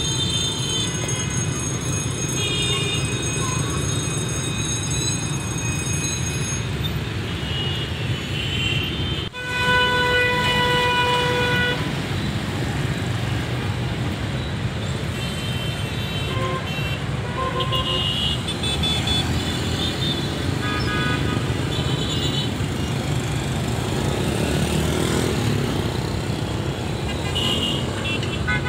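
Heavy motorbike and car traffic running steadily at a level crossing. About a third of the way in, one long horn blast of about two and a half seconds. Several short horn beeps follow later. A high steady tone sounds for the first several seconds, then stops.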